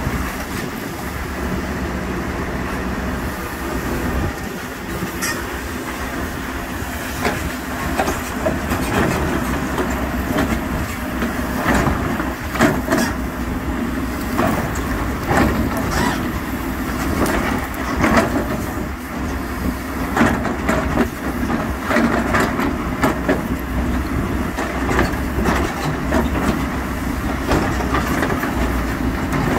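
Heavy diesel machinery running steadily, with irregular metallic clanks and knocks that come thicker from several seconds in.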